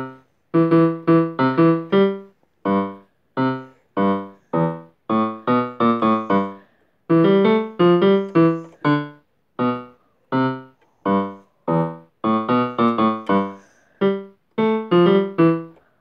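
Electronic keyboard played with a piano sound: a halting tune of single notes and small chords, picked out in short runs with brief pauses between them. Each note dies away quickly.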